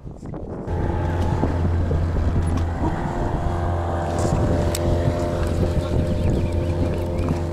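Outboard motor of a small inflatable boat running at a steady speed, with wind noise on the microphone. The motor comes in abruptly just under a second in.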